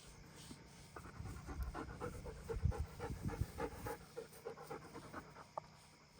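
A German Shepherd dog panting quickly, about four to five breaths a second, starting about a second in and fading out near the end. A couple of low knocks are heard around the middle.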